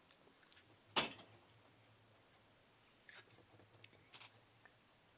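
A sharp click about a second in, followed by a few fainter clicks and rustles.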